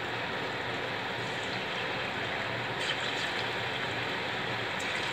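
Batter-dipped banana flower florets sizzling steadily as they deep-fry in hot oil in a stainless steel pan.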